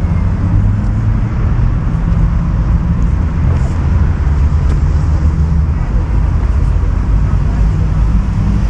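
Steady city road-traffic noise: a continuous low rumble of passing cars, without pauses or standout events.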